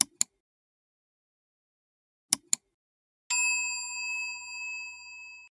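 Subscribe-button animation sound effects: a pair of quick mouse clicks, another pair about two seconds later, then about three seconds in a bright notification-bell ding that rings on and slowly fades.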